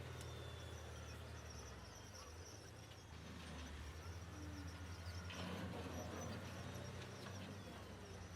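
Faint, steady low drone of heavy earthmoving machinery engines working at a distance.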